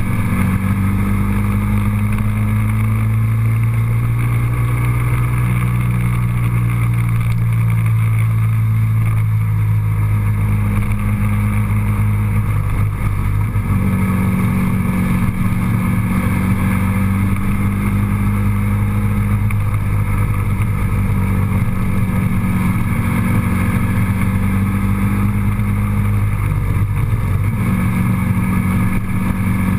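Road vehicle's engine droning steadily under way, with a strong low hum whose pitch drops and rises again a few times as the engine speed changes.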